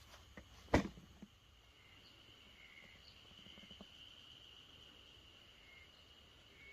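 Insects trilling faintly outdoors, a steady high-pitched trill that grows stronger after about two seconds, with a few short chirps. A single sharp click, the loudest sound, comes about a second in.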